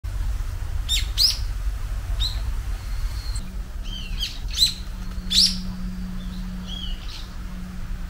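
Japanese bush warbler (uguisu) calling: a scattered series of short, sharp chirping notes. A steady low hum sits underneath from about three seconds in.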